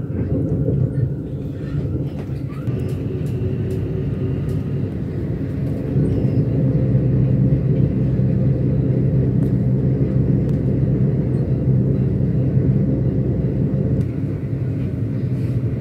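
Passenger train running along the line, heard from inside the carriage: a steady low rumble that grows louder about six seconds in.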